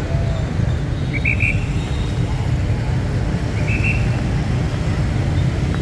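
Steady low rumble of busy city street traffic, motorbikes and cars passing. Two short shrill whistle blasts, about a second in and again near four seconds, from a traffic officer's whistle.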